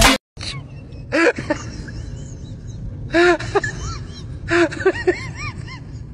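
Dog giving short, squeaky whimpers in small clusters, each call rising and falling in pitch, over a steady low rumble.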